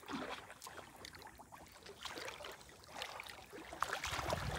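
Shallow pond water sloshing and splashing softly as people wade knee-deep and handle a fishing net. It gets louder near the end with the splashes of wading steps.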